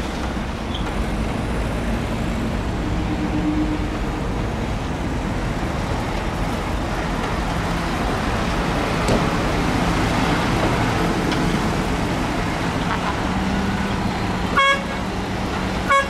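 Diesel engine of heavy earthmoving machinery running steadily, with a short horn toot near the end.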